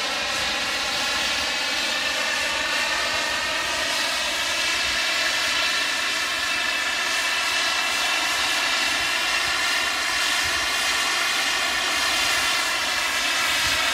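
Radio-controlled model J-10 jet flying past overhead, its engine giving a steady rushing whine whose pitch bands drift slowly up and down as it passes.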